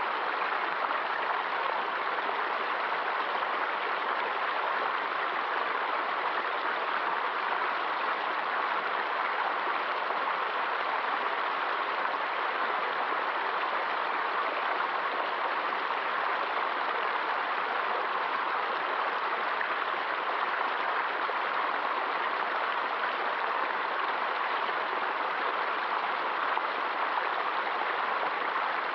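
Flowing water rushing steadily and evenly, without change or pauses.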